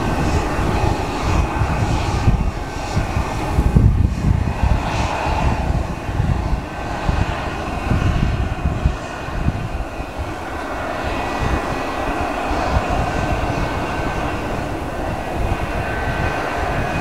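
McDonnell Douglas MD-81's rear-mounted Pratt & Whitney JT8D turbofans running as the jet taxis and turns onto the runway: a steady high whine over an uneven low rumble.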